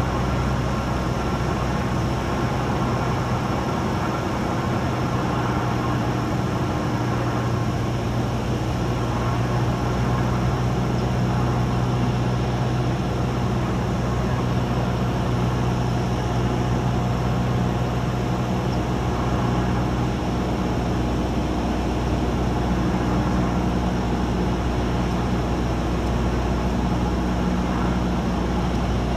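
Cessna 172's four-cylinder Lycoming piston engine and propeller droning steadily, heard inside the cabin, with a slight shift in its tone about twenty seconds in.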